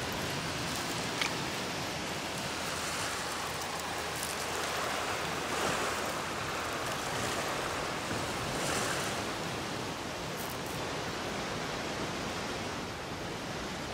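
Shallow sea surf washing in over the shore: a steady rush of water that swells a little twice, about halfway through and again a few seconds later.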